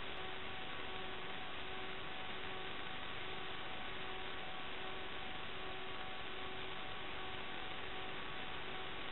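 Steady hiss of static with a faint, unchanging hum of several tones: the empty audio channel of an analog FPV video receiver's DVR recording, with no sound of the quad's motors.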